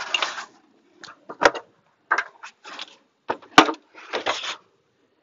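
Wooden beehive parts being handled: a run of scrapes and knocks as the hive's cover and wooden inner cover are lifted off and set down, with two sharp knocks, about a second and a half in and again about three and a half seconds in.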